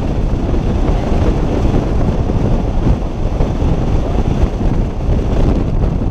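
Wind rushing and buffeting over the microphone, with the road and engine noise of a moving vehicle underneath, a steady low rumble.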